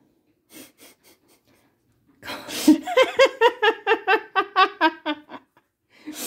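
A person laughing: starting about two seconds in, a run of rhythmic 'ha' pulses, about four a second, for some three seconds, then a sharp intake of breath near the end.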